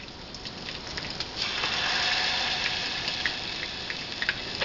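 Hot Buffalo wing sauce poured from a plastic bottle into a small saucepan of margarine on the stove: a rushing hiss that starts about a second and a half in and slowly eases off. Under it, battered chicken bites crackle and pop in a skillet of hot oil.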